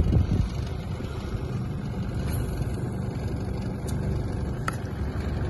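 Small fishing boat's gasoline outboard motor idling steadily, with a couple of light ticks near the end.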